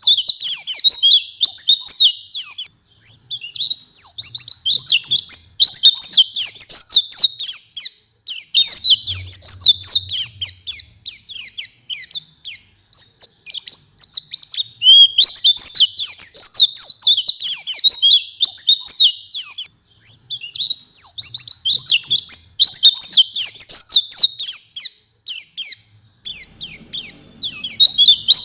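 White-eye (pleci) in full song: long, fast, high-pitched twittering phrases lasting several seconds each, broken by short pauses.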